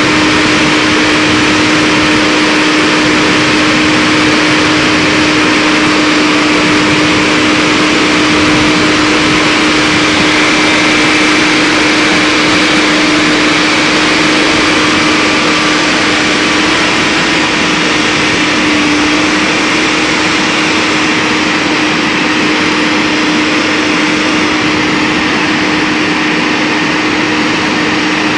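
Heavy diesel equipment engine running steadily at constant speed, a continuous drone with one unchanging tone.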